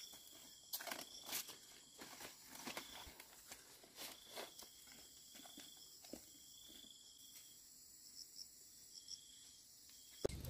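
Quiet forest ambience: faint insects trilling, a high steady tone that comes and goes in short stretches of about half a second to a second, with a few scattered faint clicks.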